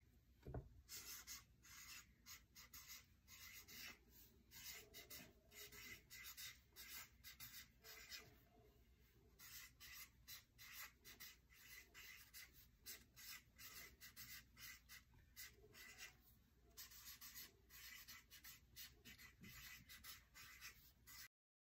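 Faint scratching of a felt-tip marker drawing letters on sketchbook paper: quick short strokes one after another, with two brief pauses, stopping abruptly near the end.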